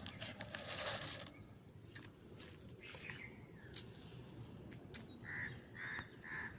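A paper packet of pigeon feed rustling in a plastic tub for about a second, then faint bird calls, with three short calls close together near the end.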